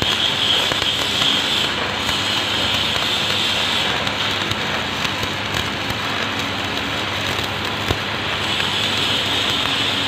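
Stick (shielded metal arc) welding: the arc of a covered electrode crackling and sizzling steadily as the rod burns into a steel box, with a few small pops.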